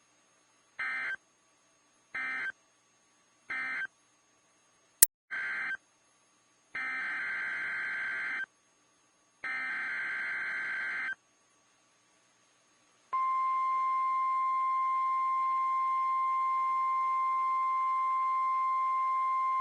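Emergency Alert System digital data bursts: four short buzzy bursts about a second and a half apart, a sharp click about 5 s in, then two longer bursts, marking the end of one alert and the header of the next. About 13 s in, NOAA Weather Radio's steady 1050 Hz warning alarm tone starts and holds.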